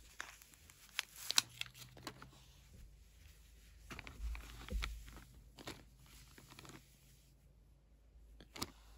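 Clear plastic bag crinkling and rustling as hands rummage through skeins of yarn inside it, in irregular crackles, with a couple of dull bumps about halfway.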